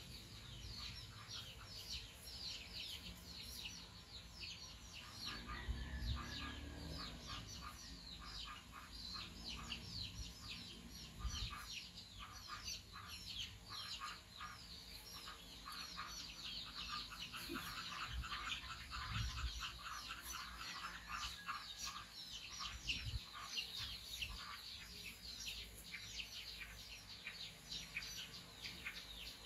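Small birds chirping busily and without pause, many short, high, falling chirps overlapping, with a couple of low bumps.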